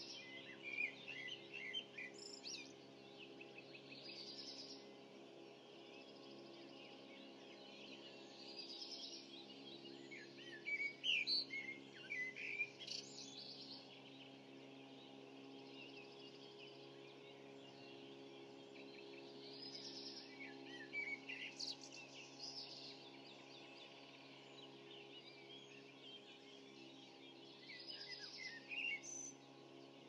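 Songbirds singing in the dawn chorus: phrases of quick chirping notes come and go with pauses of a few seconds and are loudest about ten to thirteen seconds in. Underneath runs a steady low hum.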